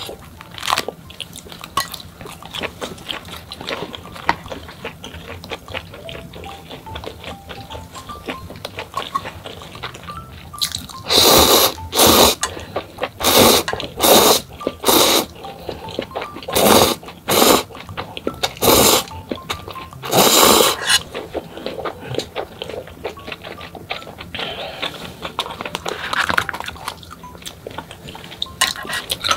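Noodles slurped through the lips in a run of about nine short, loud slurps between about 11 and 21 seconds in. Small clicks of chopsticks and eating sounds come before and after, over soft background music.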